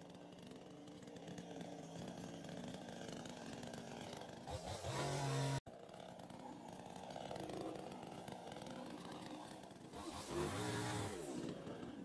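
Chainsaw engine running, revved up twice: once about halfway through and again with a rising pitch near the end. The sound drops out for an instant just before halfway.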